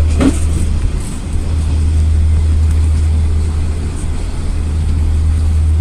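Steady low rumble of a moving train heard from inside the carriage. A short voice sound comes just after the start.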